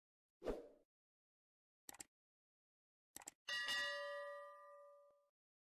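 Subscribe-button animation sound effects: a short hit, a single mouse click, a quick double click, then a notification-bell ding that rings and fades out over about a second and a half.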